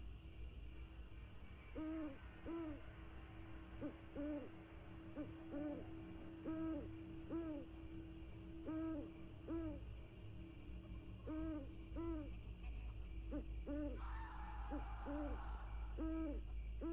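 An owl hooting over and over, short hoots about once or twice a second, some in quick pairs, over a steady low hum.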